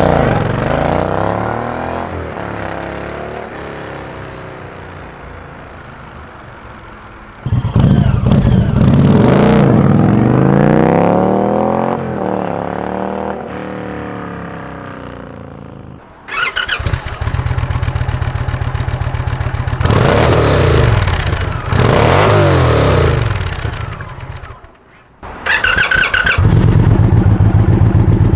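Indian Chieftain motorcycle's PowerPlus 112 V-twin heard through its exhaust in several cut-together takes: first a loud pass that fades away, then a second pass with the pitch bending up and down, then the bike running in place with two revs, and finally steady idling from about three seconds before the end.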